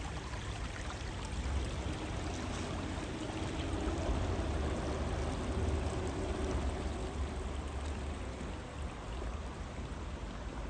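Small stream running over rocks: a steady rush of flowing water, with a low rumble underneath and a faint hum that swells and fades in the middle.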